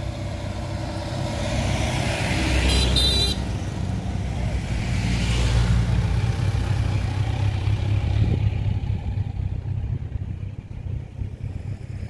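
Motor vehicles passing on the road with their engines running, and a short horn toot about three seconds in.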